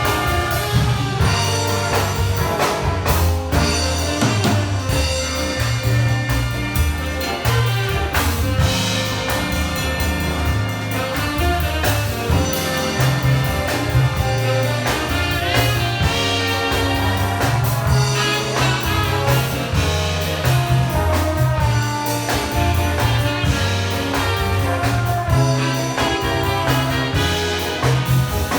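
Big band playing live: brass section carrying the tune over a rhythm section with drum kit, a jazz arrangement at a steady, full volume.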